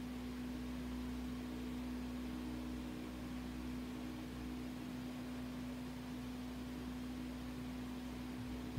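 A steady hum with one constant tone over faint room hiss, and a short knock at the very end.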